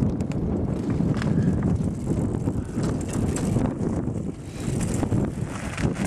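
Wind buffeting the microphone, with a mountain bike ridden up a loose stony track and coming closer; scattered small clicks and knocks come from the bike on the stones.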